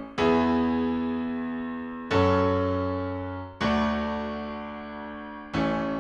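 Background music: slow piano chords, a new chord struck about every one and a half to two seconds and left to fade.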